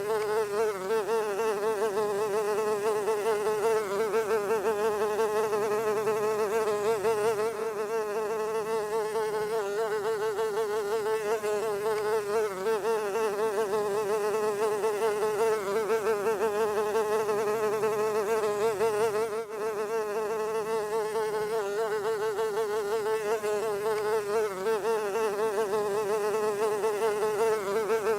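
Housefly buzzing in a continuous wing-beat drone pitched a little under 500 Hz, wavering slightly in pitch and loudness, with a brief dip about two-thirds of the way through.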